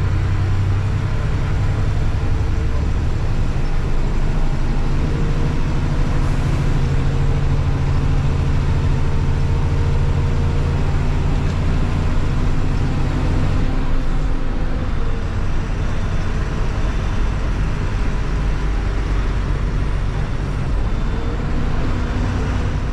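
Bus engine running in a steady low drone under road and tyre noise, heard from inside the driver's cabin as the bus drives along a winding mountain road.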